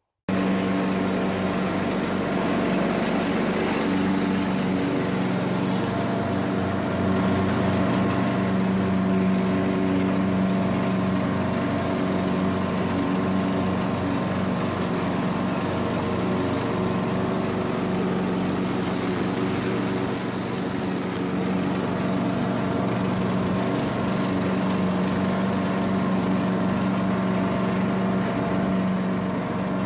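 Riding lawn tractor's engine running at a steady speed while mowing grass.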